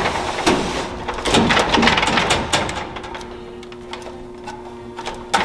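Snack vending machine's front door being unlocked and pulled open: a loud clattering rattle of metal and plastic over the first two seconds or so, then a few small clicks and knocks as the inside is handled.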